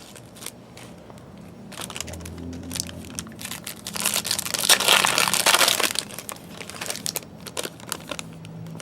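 Foil trading-card pack wrappers crinkling and crackling as packs are torn open and handled, with a louder stretch of crinkling about four to six seconds in.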